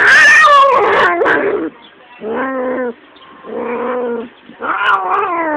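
Calico kitten yowling, protesting at being held: four drawn-out meows, the first loud and sliding down in pitch, two shorter and steadier, the last falling again.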